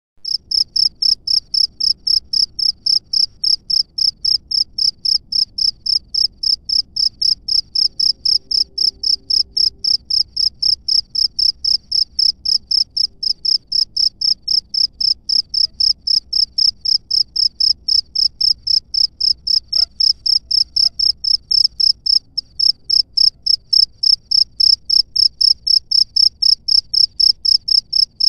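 A cricket chirping steadily at an even rhythm of about four high-pitched chirps a second, with a brief break about three quarters of the way through.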